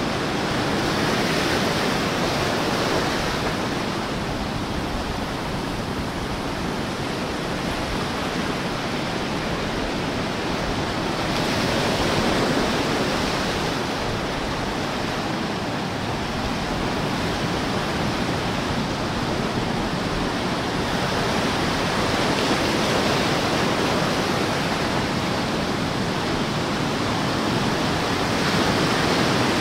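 Small ocean waves lapping and washing over rocks and sand at the water's edge: a steady rush of surf that swells louder every several seconds as each wave comes in.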